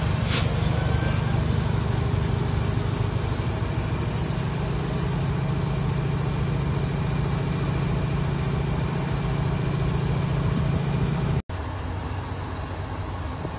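CSX diesel-electric locomotive's engine running with a steady low drone as it passes close by. The sound drops out for an instant about eleven seconds in, then continues a little quieter.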